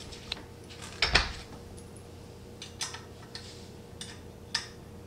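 Metal Allen key clinking against bolts and the bench frame as the leg bolts are tightened by hand: a louder clatter about a second in, then a few lighter, separate clicks.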